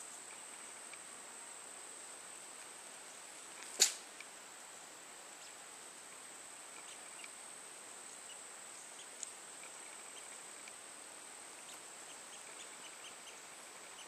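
A single short, sharp sneeze about four seconds in, over a steady high-pitched drone of insects in a field.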